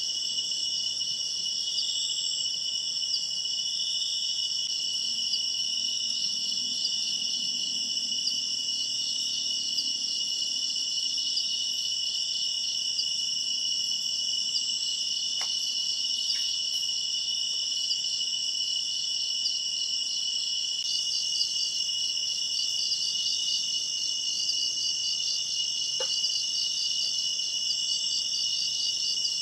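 Dense, steady chorus of insects trilling in several high-pitched bands, with a few faint clicks about halfway through and near the end.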